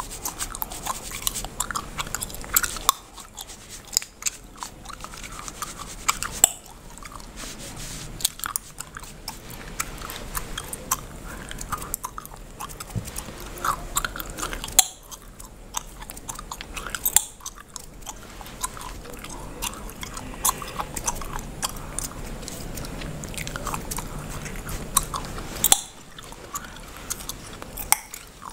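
Bubblegum chewed close to the microphone, with irregular sharp cracks and snaps, over soft scratching and rubbing of fingers and a cotton swab on an oiled scalp.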